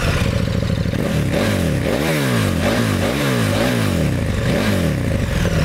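KTM 1290 Super Duke R's V-twin, breathing through an SC Project exhaust with the dB killer fitted, idles, then is revved in a run of quick throttle blips about two a second before dropping back to idle near the end.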